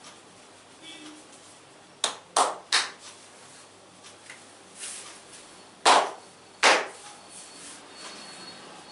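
Sharp hand slaps of a massage: three in quick succession about two seconds in, then two more a little under a second apart around six seconds in.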